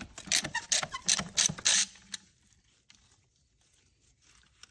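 Hand ratchet wrench clicking as it backs out a top transmission bolt: a quick run of about ten clicks, roughly five a second, that stops about two seconds in.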